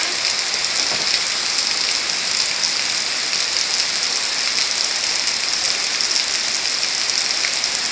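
Steady downpour of rain, an even hiss with no let-up.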